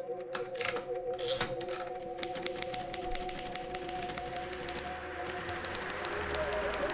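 Old manual typewriter being typed on: scattered key strikes, then from about two seconds in a fast, even run of clacks. Under the typing, music plays with sustained, wavering tones.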